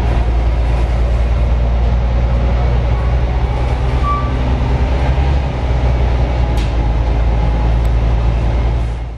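Mercedes-Benz O345G articulated bus's diesel engine and drivetrain heard from inside the passenger cabin while driving: a steady low rumble, with a brief high squeak about four seconds in.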